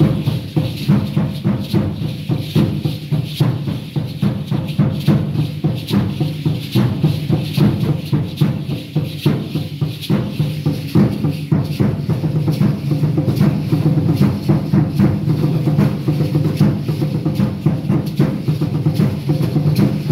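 Tall upright wooden hand drum (huehuetl) beaten in a steady, fast rhythm to accompany Aztec dance.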